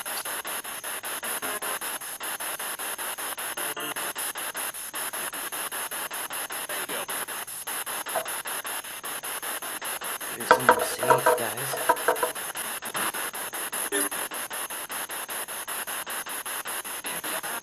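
Spirit box sweeping through radio stations: rapid, choppy static. About ten to twelve seconds in come a few short garbled fragments of broadcast voice or tone.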